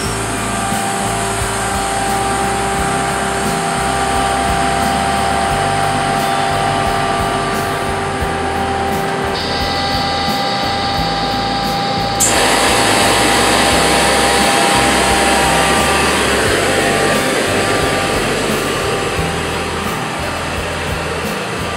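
A pressure-swing-adsorption oxygen plant with Elgi compressors running: a steady machine hum and whine over a hiss. About twelve seconds in it steps up suddenly to a louder rushing hiss.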